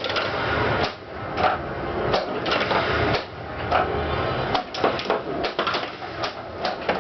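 Attack From Mars pinball machine in play: rapid, irregular clacks and knocks of flippers, solenoids and the steel ball striking the playfield, over the game's music.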